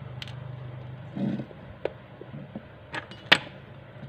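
Small clicks and taps of a phone charging board and small metal parts being handled and set down on a rubber bench mat, the sharpest click a little over three seconds in, over a steady low hum.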